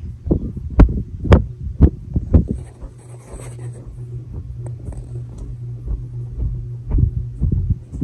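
Fanimation Enigma ceiling fan with FDK2100 motor running, its motor giving a steady low hum. Rhythmic low thumps come about twice a second as air from the passing blades buffets the microphone. The thumps are strong in the first couple of seconds, ease off in the middle and return near the end.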